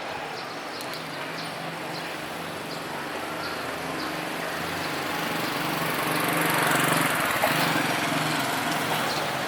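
A small engine running steadily close by, growing louder to a peak about two thirds of the way through, then easing off slightly.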